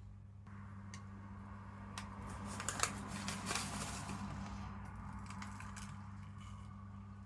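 Small clicks and rustling, as of small parts being handled on a work surface, busiest in the middle, over a steady low hum.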